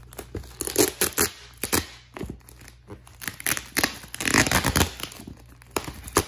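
Clear plastic wrapping on a cardboard parcel being cut with scissors and pulled and torn away by hand: a run of short snips, rips and crinkles, densest and loudest about four seconds in.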